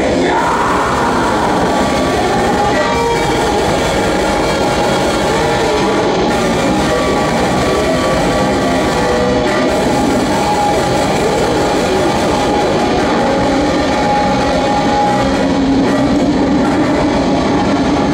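Heavy metal band playing live: loud distorted electric guitars over drums in a dense, unbroken wall of sound, with held guitar notes ringing above it.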